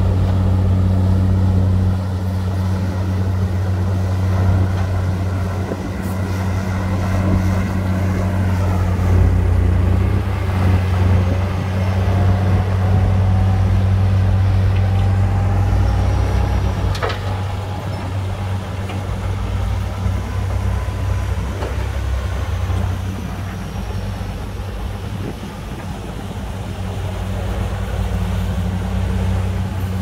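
Heavy diesel earthmoving machine engine running steadily under load, a deep constant drone. A faint whine rises slowly through the middle, and there is a sharp click a little past halfway.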